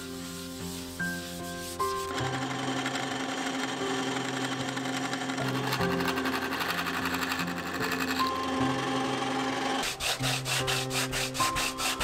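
Background music over workshop noise: a board is sanded by hand at first, then a bandsaw runs and cuts through the epoxy-filled wooden board from about two seconds in until about ten seconds in.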